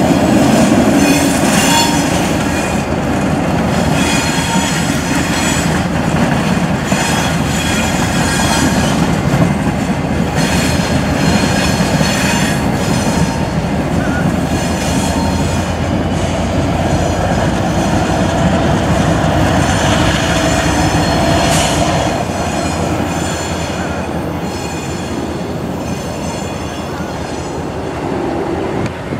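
CSX diesel freight locomotives rolling through a curve, engines running under a steady rumble, with high-pitched wheel squeal from the curving track, loudest near the start and again briefly past the middle.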